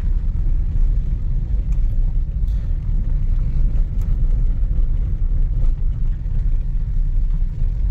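Car driving along a hill road: a steady low rumble of engine and road noise.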